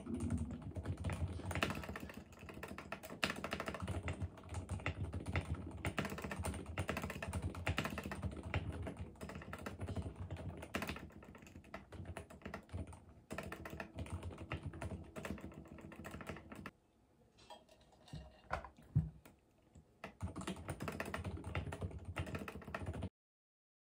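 Fast, continuous typing on a mechanical keyboard, the keys clacking in quick runs. About two-thirds of the way through the typing pauses for a few seconds with only a few single keystrokes, then resumes and stops abruptly just before the end.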